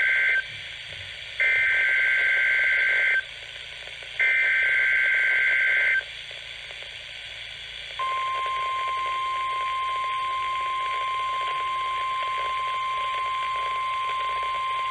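NOAA Weather Radio weekly test tones coming through a weather radio receiver over steady static hiss. First the end of one SAME digital header burst, then two more data bursts of about two seconds each with short gaps between them. About eight seconds in, the steady warning alarm tone begins and holds, the tone that triggers alert receivers.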